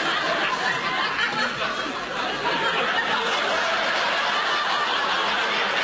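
Studio audience laughing at a punchline, the laughter holding at an even, loud level.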